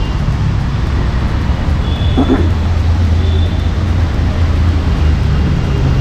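Street traffic on a rain-wet road: a steady low rumble of passing vehicles, with a brief voice about two seconds in.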